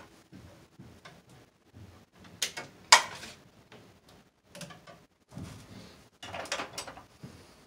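Clicks and knocks of hands and a tool working inside an open breaker panel while two circuit breakers are hooked up; the loudest is a sharp click about three seconds in.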